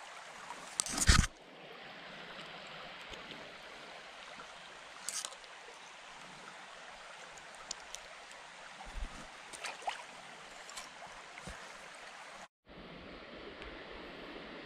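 Shallow creek running steadily over a gravel bed, with a few knocks and rustles of handling close to the microphone, the loudest about a second in. The sound drops out briefly near the end.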